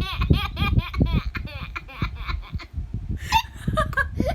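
Baby laughing hard in a quick run of short bursts, several a second, that thins out after the first couple of seconds.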